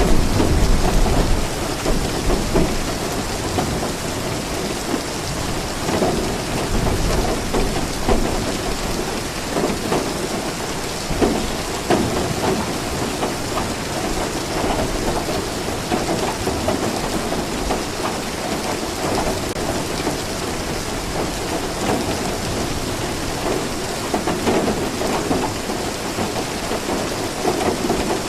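Steady heavy rainfall, a dense even hiss, with low rumbles of thunder, the strongest in the first second or two and another about seven seconds in.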